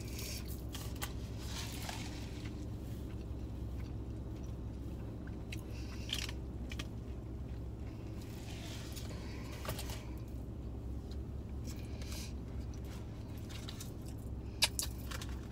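Close-up chewing and biting of fast food, with short crunchy bursts and wet clicks now and then, over a steady low hum inside a car.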